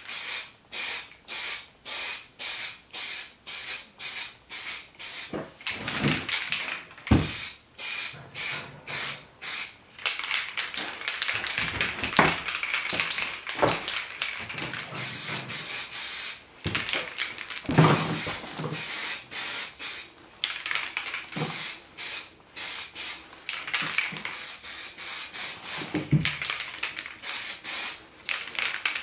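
Aerosol can of heat-resistant paint spraying in short hissing bursts, about two a second, with a few louder knocks in between.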